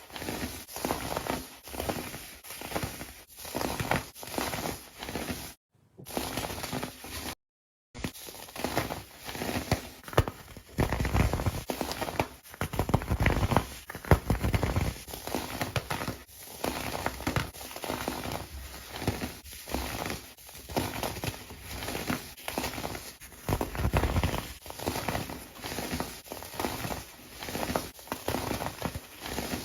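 Kinetic sand being crushed and crumbled by hand: grainy crunching and crackling in repeated strokes about once a second, broken by two short silent gaps.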